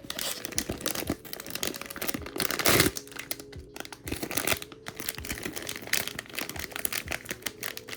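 Crinkling and crackling of a plastic blind-box bag being handled and torn open, with a louder rip a little under three seconds in.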